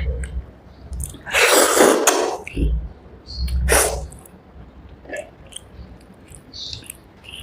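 Close-miked person eating rice with fish curry: small wet mouth clicks and smacks, broken by a loud breathy burst of air, like a sneeze or sharp exhale, a little over a second in, and a shorter one near four seconds.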